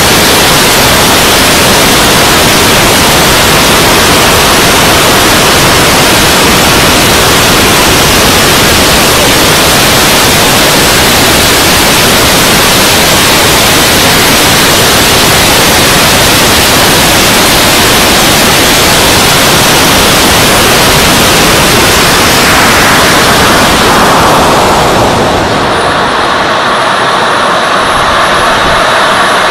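RC model jet's engine and rushing airflow heard through an onboard camera mic, a loud, even hiss-like roar. Near the end a tone sweeps downward and the sound turns duller.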